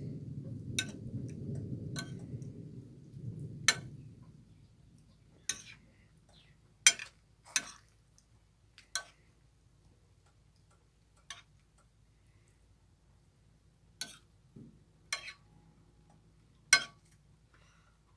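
Kitchen utensil clinking and tapping against a wok or pan while the stir-fry is stirred and served, about a dozen sharp, irregular clinks. A low, steady rumble under the first few seconds fades out about four seconds in.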